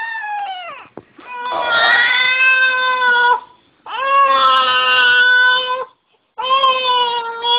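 Newborn baby crying: a series of long, steady wails of about two seconds each, with short breaks for breath between them.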